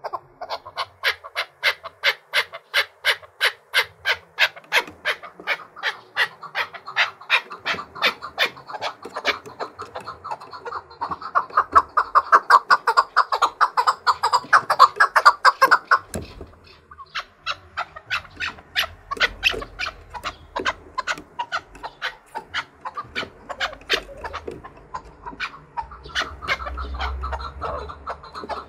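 Chukar partridge singing: a long run of sharp, evenly repeated calls, growing denser and louder a little before the middle, breaking off briefly just past the middle, then starting again.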